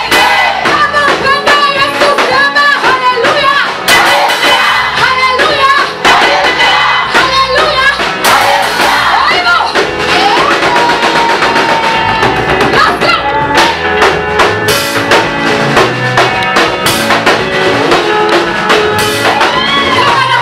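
Loud praise music: singing voices over a band with a driving drum kit.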